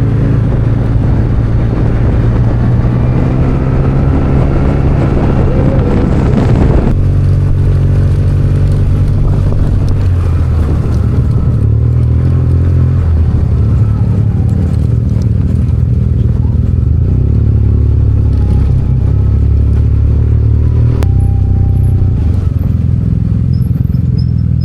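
Yamaha TMAX maxi-scooter engine running steadily under way, with a low drone whose pitch shifts slightly with the throttle.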